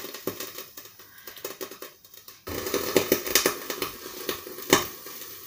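Eggplant slices frying in hot sunflower oil in a covered frying pan: irregular crackling and popping over a low sizzle, growing louder about halfway through.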